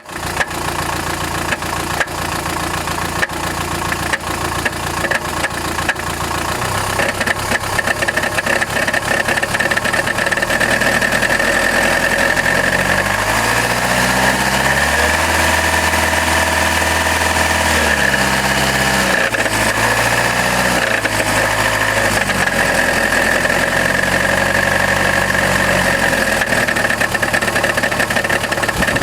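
Chrysler Grand Voyager's 2.8 CRD four-cylinder diesel engine running with a rattle, with sharp irregular knocks plain in the first several seconds. The revs step up around the middle, hold briefly and drop back. The rattle is the sign of a badly cracked flexplate between the crankshaft and the torque converter.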